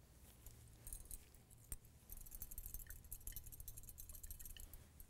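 Faint, rapid metallic jingling and clinking of a wire test-tube holder against a glass test tube as the tube is shaken to dissolve a salt into solution, with one sharp click a little under two seconds in.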